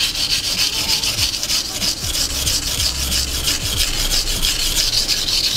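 A Nishida kurouchi petty knife's blade scraping back and forth on a wet whetstone in quick, even strokes, giving a steady gritty rasp. This is heavy sharpening to grind a chip out of the edge.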